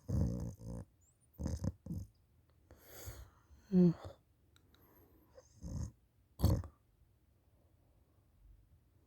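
A person snoring with the mouth hanging open: a run of short, loud snorts and rasping breaths at uneven intervals, one carrying a brief pitched note about four seconds in.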